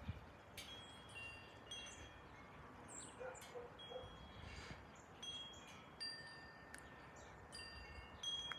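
Wind chimes ringing softly: scattered high, clear tones, several overlapping, each struck suddenly and ringing on briefly.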